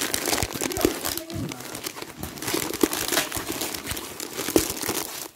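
Christmas wrapping paper crinkling and rustling as a present is unwrapped by hand, with a busy run of small crackles.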